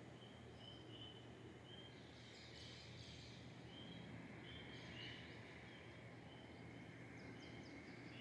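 Faint birds calling at dawn: a short high note repeated every half second or so, with a few brief higher chirps, over a low steady background hiss.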